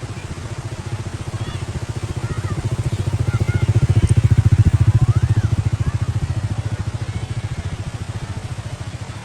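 A motor engine with a low, fast, even pulse passes close by, growing louder to a peak about halfway through and then fading away.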